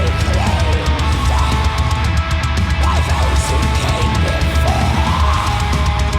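Heavy metal music soundtrack with distorted electric guitar and drums.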